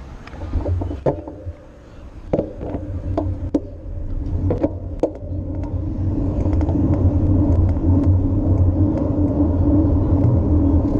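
A bicycle rolling along a paved street, heard from a camera on the handlebars: a steady low road and wind rumble with several sharp clicks and rattles in the first half, the rumble growing louder and steadier after about six seconds.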